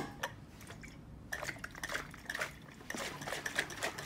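A stainless steel travel mug and its lid being handled after water was poured out of it. There is a sharp clink at the start, then from about a second in a run of light, irregular clinks and water drips.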